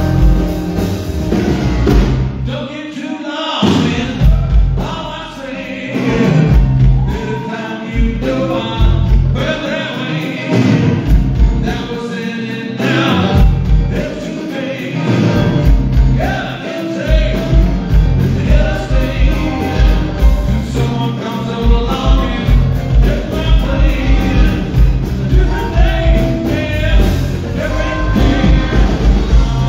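Live rock band playing a song: drum kit, electric guitar, bass and keyboards with male singing, steady and loud.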